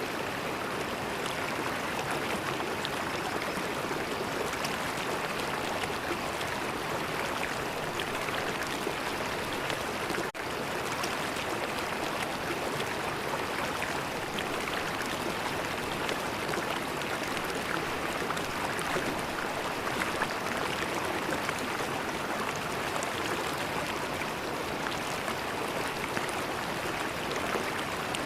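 River water flowing, a steady, even rush with a brief dropout about ten seconds in.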